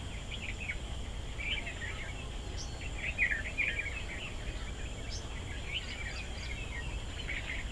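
Birds chattering in quick, scattered chirps over a steady low rumble, with a thin, steady high tone behind them.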